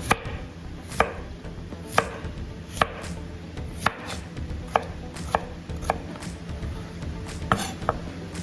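Knife cutting through potatoes and striking a cutting board: about ten sharp chops, roughly one a second, at an uneven pace.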